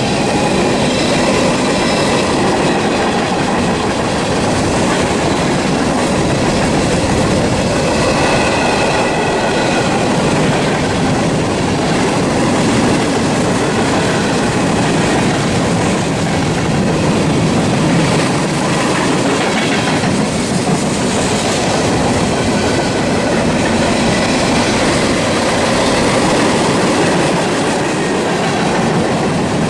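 Freight train cars rolling past close by: a loud, steady clatter of wheels on rail, with thin high squeal tones from the wheels now and then.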